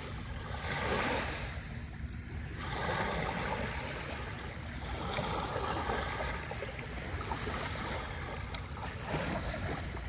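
Gentle lake waves breaking and washing up over a sandy beach, swelling and ebbing every two to three seconds.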